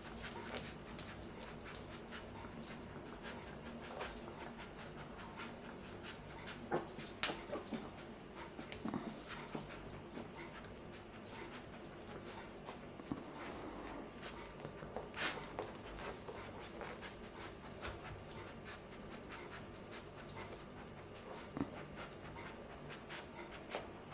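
A young puppy panting as it clambers over a person's legs, with many small clicks and rustles scattered throughout.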